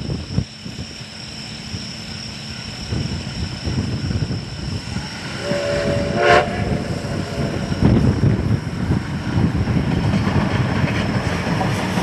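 Steam locomotive D51 200, a JNR class D51 2-8-2, sounding its whistle in one blast of a little over a second, about five seconds in. The rumble of the train grows louder as it draws near.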